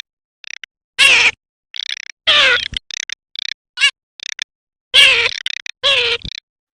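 Garganey calling: a series of about ten short calls in quick succession, several of them falling in pitch.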